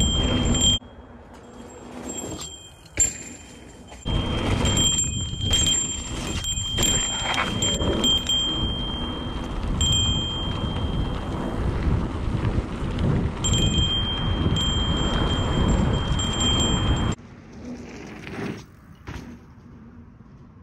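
Mountain bike riding over a dirt trail: tyre and wind noise, with a high ringing tone that comes and goes. The noise drops away for about three seconds near the start and again for the last few seconds.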